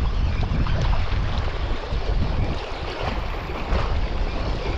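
Wind rumbling on the microphone, with the wash of sea waves.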